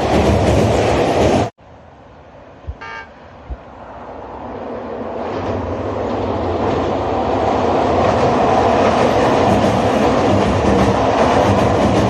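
Nagano Electric Railway local train running loudly, cut off abruptly about a second and a half in. A single short horn toot follows, and then a train's running noise grows steadily louder over several seconds and stays loud.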